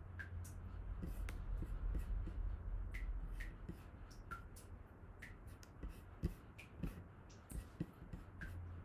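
Irregular clicks of a computer mouse, one or two a second, over a low steady hum.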